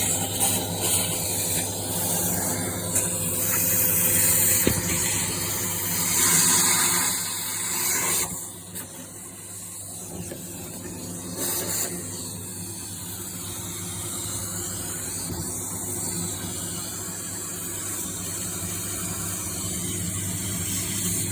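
A hissing jet, loud for about the first eight seconds, then dropping away, over a steady low mechanical hum.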